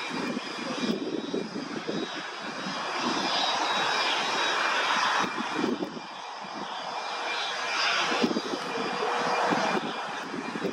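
Small twin-engine business jet's engines running: a faint high steady whine over a rushing noise that swells and eases. Gusts of wind buffet the microphone.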